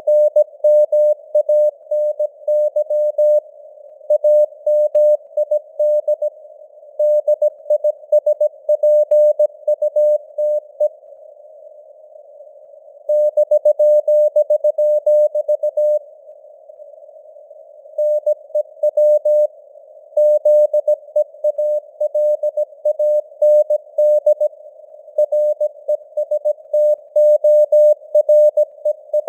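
Morse code (CW) sent at 17 words per minute: a single-pitched tone keyed in dits and dahs over a narrow band of simulated radio hiss, with the signal strength varying (QSB). It pauses twice, leaving only the hiss, about eleven and sixteen seconds in.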